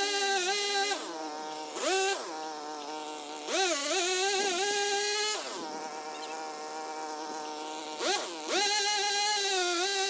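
Stihl pole pruner's small engine revving up to a high whine in repeated throttle bursts and dropping back to idle in between, about five times. While at full revs the pitch sags briefly, as when the chain bites into a branch.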